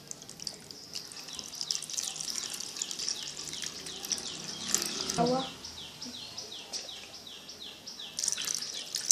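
Water poured from a metal pot into a plastic tub, splashing steadily. A bird chirps in the background, a short falling call repeated about three times a second.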